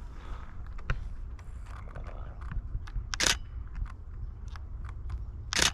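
DSLR camera shutter firing twice, once about three seconds in and again near the end, over faint clicks and a steady low rumble of handling or wind on the microphone.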